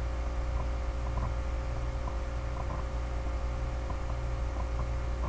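Steady low electrical hum with hiss in the recording, with a few faint light ticks.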